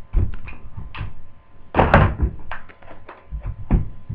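Plastic clicks and knocks from a Dell Inspiron 1545 laptop being handled as its battery is unlatched and taken out, with one louder clunk about two seconds in.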